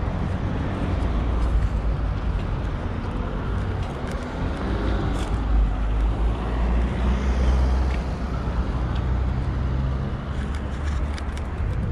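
Road traffic: cars driving by, a continuous low engine and tyre rumble that swells as vehicles pass in the middle.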